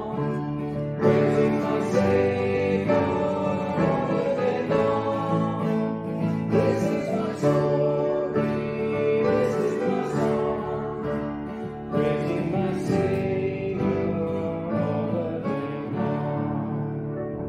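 Hymn music played on a strummed acoustic guitar with voices singing, trailing off near the end.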